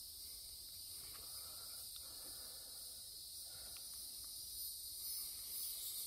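Steady chorus of singing insects: a continuous high-pitched shrill drone that holds level throughout.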